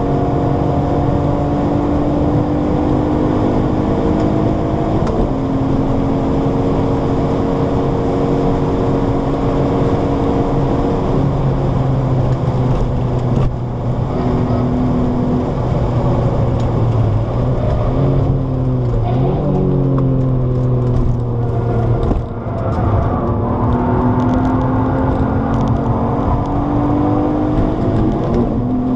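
Alfa Romeo 156's Busso V6 engine heard from inside the cabin under hard track driving: the revs climb and then drop sharply at each upshift, fall away through a stretch of downshifts past the middle with a brief lift, then climb again. Tyre and wind noise run underneath.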